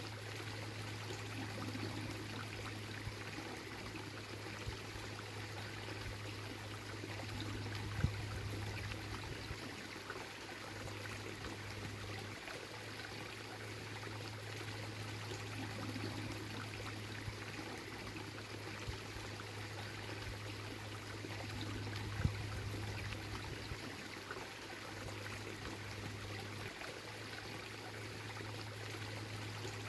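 Small Ardennes waterfall on the Bayehon stream: a steady rush and splash of falling water with a low rumble beneath it. Two brief knocks cut through, about eight seconds in and again near twenty-two seconds.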